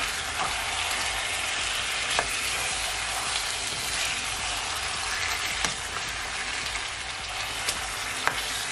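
Chicken pieces sizzling in hot browned sugar and oil in a nonstick frying pan, the first step of Jamaican stew chicken. A spatula turning the pieces makes a few light clicks and scrapes over the steady sizzle.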